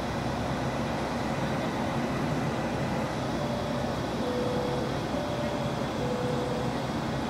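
Steady roar of a jet airliner in flight heard inside the cabin: turbofan engine and airflow noise, even and unbroken. A faint tone steps back and forth between two pitches in the second half.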